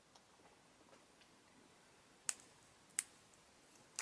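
Mostly quiet, with a few faint ticks and two short sharp clicks about two and three seconds in, from fingers handling a foil-wrapped chocolate gold coin.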